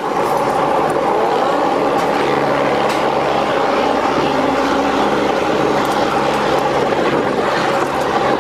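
Loud, steady running of a motor vehicle engine close by, a constant hum under street noise.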